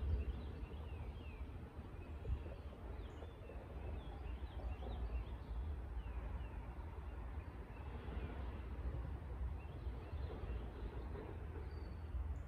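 Outdoor lakeside ambience: birds chirping, many short quick calls scattered throughout, over a steady low rumble and a soft even rustle of wind through the trees.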